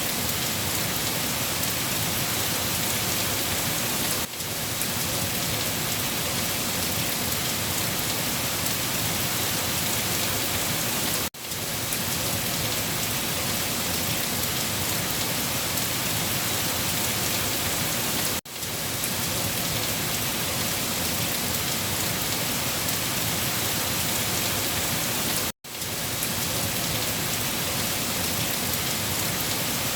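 Steady, heavy rain falling, an even dense hiss. It drops out for an instant four times, about every seven seconds.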